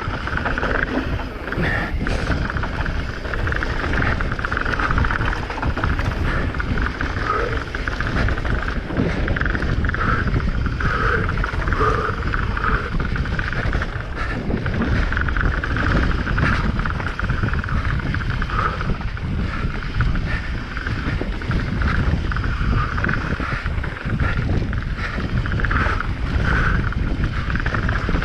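Transition Patrol mountain bike descending fast on a rough trail: a continuous loud rush of wind and tyre noise, with no break.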